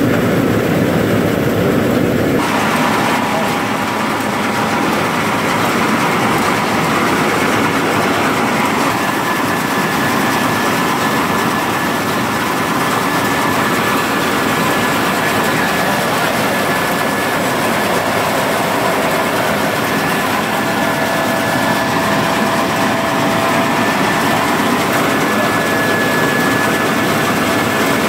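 Case IH Axial-Flow 6140 combine running under threshing load, heard inside the cab: a steady, loud mechanical drone of engine, rotor and header, with a thin steady whine on top.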